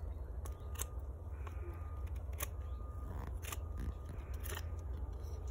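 Knife blade whittling a stick, shaving off bark in short, irregular scraping strokes, about one or two a second.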